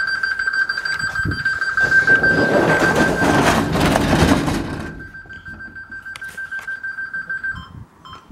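Optima compact alarm system sounding its exit tone after a quick set: a steady, high-pitched fluttering tone that switches near the end to short beeps about twice a second. A loud rustling noise covers the middle of it for about three seconds.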